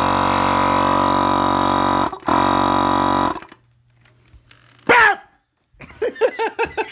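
Small portable air compressor running with a steady buzzing hum while it pumps up the launcher's air chamber, then switched off about three and a half seconds in. After a short quiet there is a brief falling vocal sound, and voices and laughter begin near the end.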